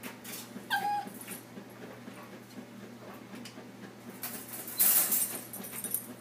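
A puppy gives one short whimper about a second in, among light clicks and rattles from its wire crate. Near the five-second mark comes a louder rustling scramble as it climbs out over the bedding.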